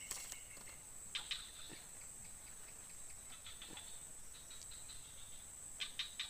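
Steady high-pitched insect buzz, with a few short clicks about a second in, a run of faint ticks in the middle and more clicks near the end.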